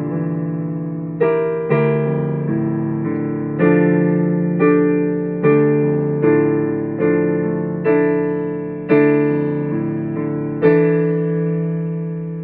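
Slow piano music: chords struck at an unhurried, uneven pace, about one every second, each left to ring and fade before the next.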